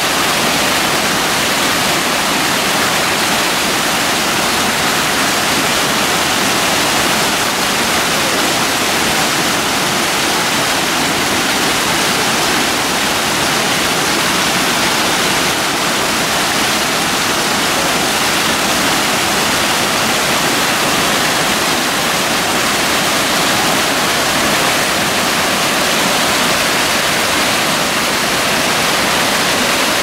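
Waterfall in spate after heavy rain: a loud, steady rush of white water pouring down over rock.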